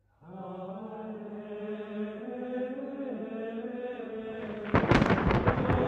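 Low sustained chanting voices holding a drawn-out note. Almost five seconds in, a loud crack of thunder breaks over it and rolls on as a rumble.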